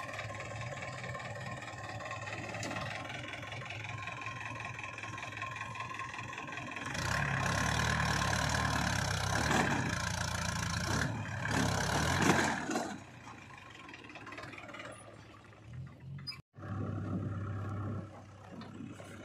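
Mahindra 475 DI tractor's four-cylinder diesel engine running under load as it pulls a trolley heaped with earth over rough ground; it gets much louder for about six seconds midway, then drops back. Near the end the sound cuts suddenly to a JCB 3DX backhoe loader's diesel engine running.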